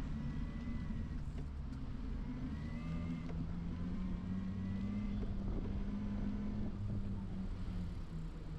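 Road traffic: a motor vehicle's engine hums steadily close by. Its pitch rises about three seconds in and drops back near the end.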